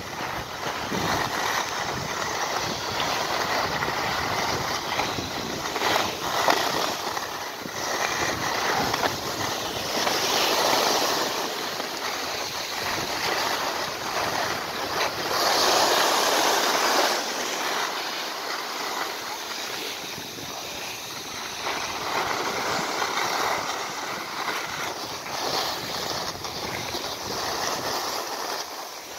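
Skis hissing and scraping over packed, groomed snow while skiing downhill, mixed with wind on the microphone. The hiss swells in a few longer surges, loudest about ten and sixteen seconds in.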